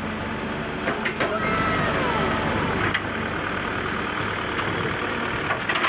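Excavator's diesel engine running steadily under hydraulic load as the bucket lifts a tyre, with a few short knocks and a smooth falling whine about one and a half seconds in.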